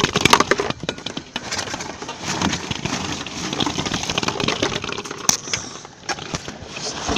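Dense, irregular crackling and snapping, many sharp clicks close together, thickest in the first second.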